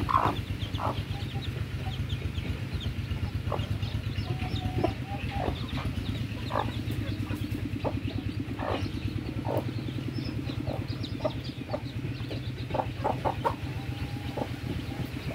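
Bangkok hen clucking to her three-day-old chicks: short, separate clucks scattered throughout, over a steady low hum.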